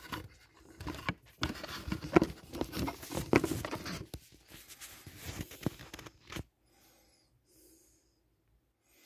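Close handling noise of a scale model aircraft on its plastic stand: rubbing, scraping and small knocks that stop about six and a half seconds in, followed by a few faint breaths.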